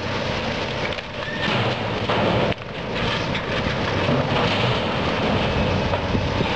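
Link-Belt 210 LX tracked excavator's diesel engine running under load as it swings and dumps a grapple-load of broken wooden house debris into a steel roll-off dumpster. The dropped timber and boards crash into the container in the second half, a loud continuous clattering rumble over the steady engine hum.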